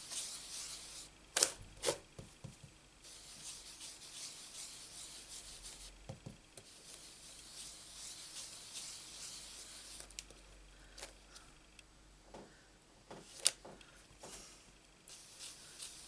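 Ink blending brush rubbed in small circles over a paper stencil mask and card, a soft scratchy brushing hiss that comes and goes. A few short clicks stand out, the loudest about thirteen seconds in.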